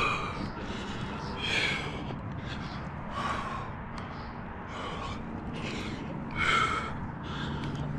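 A rock climber breathing hard while climbing: sharp gasps and forceful exhales about once a second. The loudest come near the start, about a second and a half in, and about six and a half seconds in.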